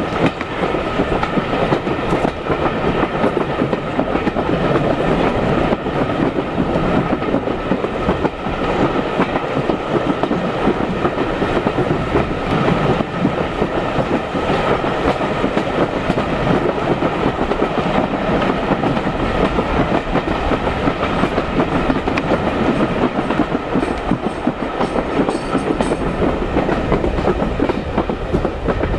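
Heritage railway carriage running steadily on the track behind a steam locomotive: a continuous, even noise of wheels on rail, with no change in pace.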